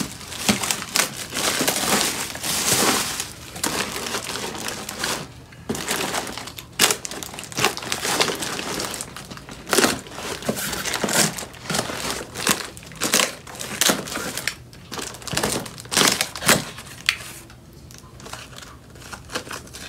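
Plastic packaging crinkling and rustling as hands pull open a plastic-wrapped, taped parcel, in irregular bursts of crackles.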